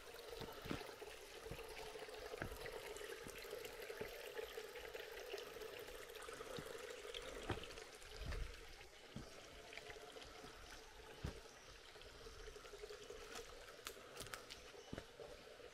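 Creek water trickling and pouring steadily over rocks, heard faintly, with scattered light clicks and a dull thump about eight seconds in.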